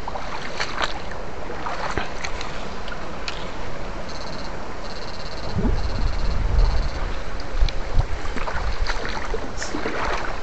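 Shallow stream water sloshing and swishing around a person wading with electrofishing poles, with scattered knocks and splashes. Midway come four short, high-pitched buzzes in a row, followed by a low rumble of the poles and body moving through the water.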